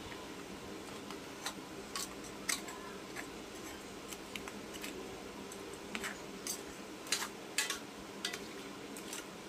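A spatula clinking and scraping against a large stainless steel pot, stirring crabs and shrimp in coconut milk: scattered, irregular clicks and taps over a faint steady hum.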